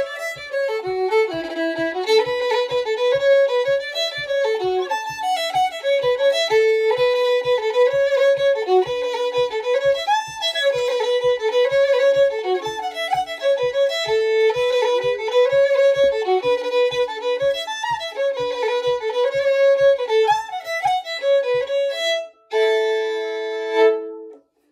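Solo fiddle playing a lively Irish traditional tune, with a low thump marking the beat about twice a second. Near the end the tune closes on a held double-stop chord of about two seconds, then stops.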